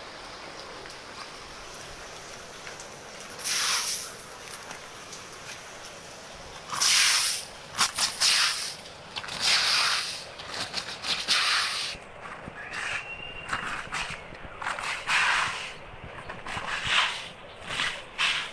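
Steady hiss of heavy rain and hail falling. From about three and a half seconds in it is broken by a series of loud, irregular swishing noise bursts.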